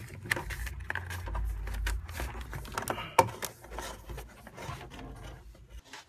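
Corrugated plastic split-loom wire sheathing rubbing, scraping and clicking as wires are worked into it by hand, with irregular scrapes and a sharp click about three seconds in.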